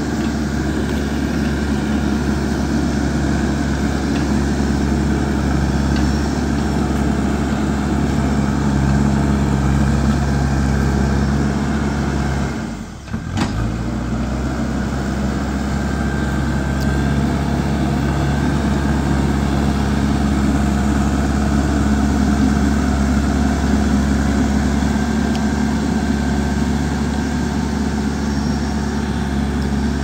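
JCB 3DX backhoe loader's four-cylinder diesel engine running steadily as the machine drives and works with its front loader bucket. The sound dips out briefly about thirteen seconds in, then resumes.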